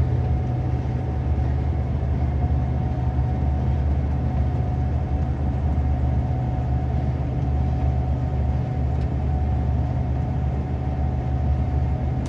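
Gleaner S98 combine running steadily under load while harvesting soybeans: a constant low engine drone with a thin, steady whine above it.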